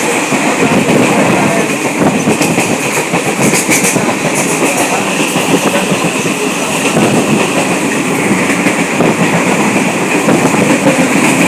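Passenger train running along the track: a steady rumble with the wheels clattering over the rails, and a few sharp clicks a few seconds in.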